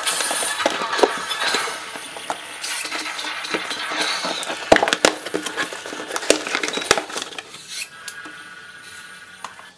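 A cardboard box is opened: scissors slit the packing tape and the flaps are pulled apart. There is a run of scraping, rustling and sharp clicks, loudest in the first couple of seconds and dying down toward the end.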